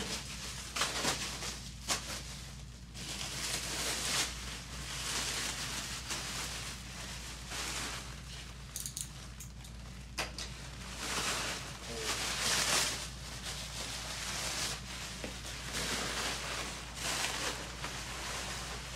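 Black plastic stretch wrap being pulled off a machine and crumpled, crinkling and rustling in repeated bursts with a few sharp snaps, over a steady low hum.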